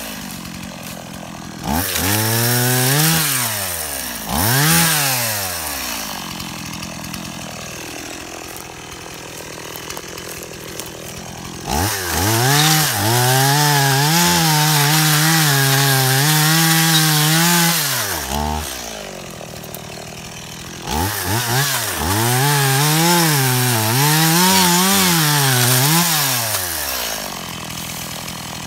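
Stihl 018 two-stroke chainsaw cutting brush. Two short revs in the first few seconds, then a low idle. It then runs at full throttle for several seconds while cutting, drops back to idle, and revs again with the pitch dipping and rising under load before settling to idle near the end.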